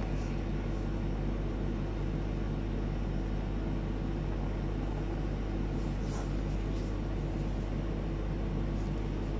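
Steady low hum of background noise, with a few faint clicks about six seconds in.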